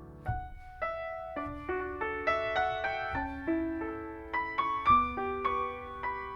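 Slow instrumental piano music: single notes struck one after another, about two or three a second, each fading, over a few deep bass notes.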